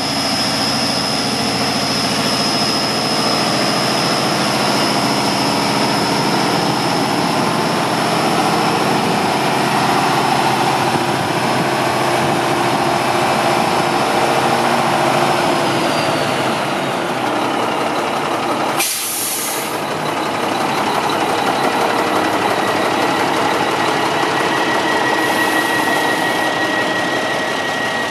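1995 Mack CH613 tractor's diesel engine idling steadily. A high whine slides down in pitch about two-thirds of the way through, followed by a brief sharp hiss.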